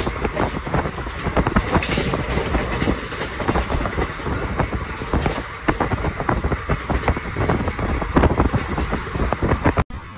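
Train running on the tracks: a loud rumble with rapid, irregular clatter of wheels over the rails. The sound cuts out abruptly near the end and comes back quieter.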